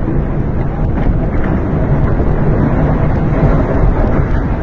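Violent storm wind gusting and buffeting the microphone, with heavy rain in the din.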